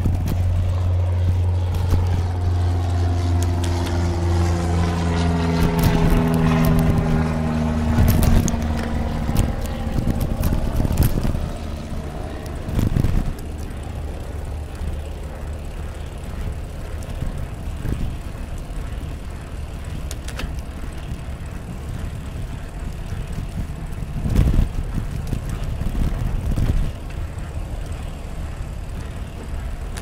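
An engine passing close by, with a steady low hum that rises and peaks about seven seconds in, then fades. After it comes a steady rush of bicycle tyres and wind, with scattered clicks and a louder knock near the end.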